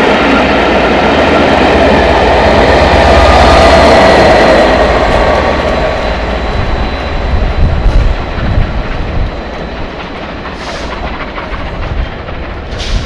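A passenger train of Pullman coaches running through the station at speed, its wheels rumbling and clacking over the rails. The noise swells as the last coaches and the rear Class 67 diesel go by, then fades as the train draws away. Two brief hisses come near the end.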